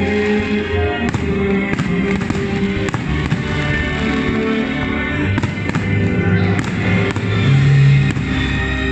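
Fireworks going off in a string of sharp pops and crackles, over loud music with long held notes.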